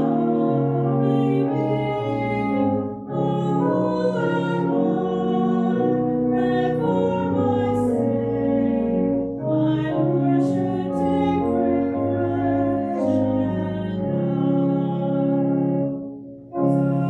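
Small church choir singing with organ accompaniment, in sustained phrases with brief breaks between them.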